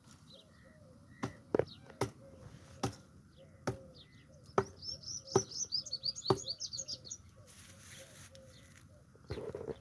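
Birds chirping in the open, with a quick burst of high twittering midway. About eight sharp clicks or snaps are scattered through it, and there is a rustle near the end.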